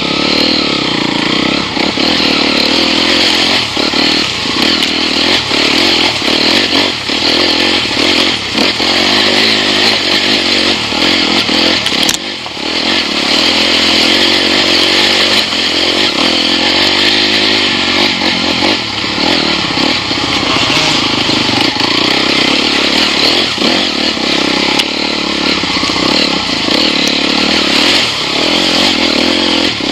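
Enduro motorcycle engine running steadily under throttle, with frequent knocks and clatter from the bike over rough trail. The level drops briefly about twelve seconds in.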